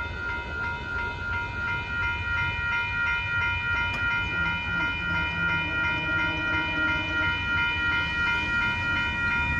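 Grade crossing warning bell ringing rapidly and steadily, over the low rumble of a passenger train rolling away past the crossing.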